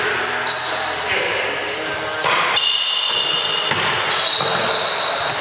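Basketball dribbled on a hardwood gym floor, each bounce a sharp knock that echoes through the hall. From about halfway in, sneakers squeak on the floor, and players' voices mix in.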